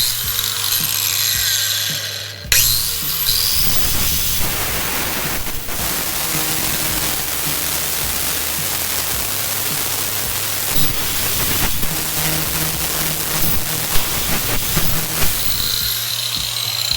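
High-speed power grinder cutting the corner off a small metal L bracket. The tool runs briefly, stops about two and a half seconds in, then starts again and grinds steadily, with a high whine as it winds down near the end.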